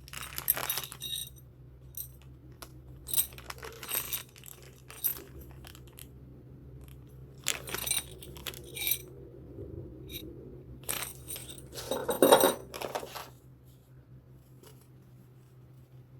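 Belt clip of a HAZET 9212 cordless impact wrench being handled: scattered small metallic clicks and clinks, with the loudest clusters about half a second in and about twelve seconds in.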